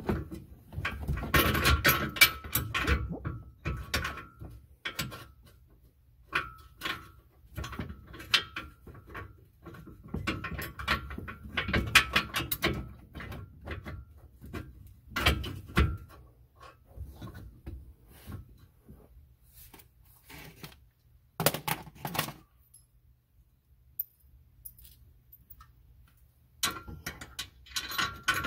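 A steel mounting plate and bolts clinking, rattling and knocking against the vehicle's underbody as they are worked into place by hand. The sounds come in irregular bunches, with a pause a few seconds before the end.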